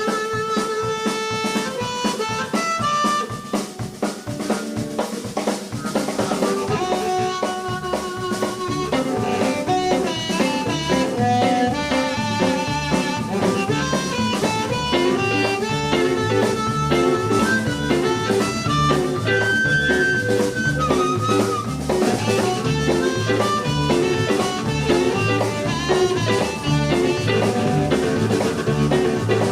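Live blues band playing an instrumental passage: harmonica carrying the melody over a steady drum-kit beat, with a bass line growing stronger a few seconds in.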